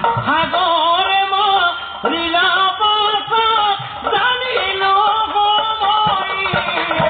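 Lead singer's voice in an Assamese Nagara Naam devotional song, sung in long wavering, ornamented phrases, with a few low drum strokes near the end.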